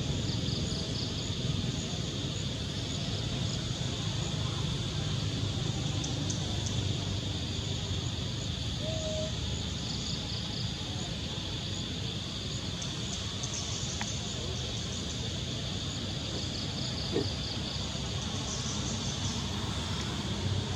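Steady outdoor background noise: a low rumble under a constant high hum, with short clusters of high chirps every few seconds.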